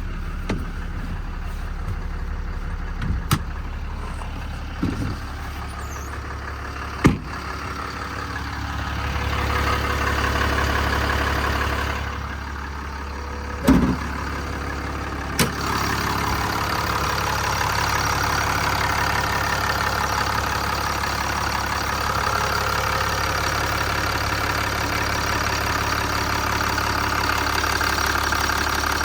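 Ram 5500's Cummins diesel idling steadily, with a few sharp knocks in the first half. From about halfway through, the engine sound grows louder and busier.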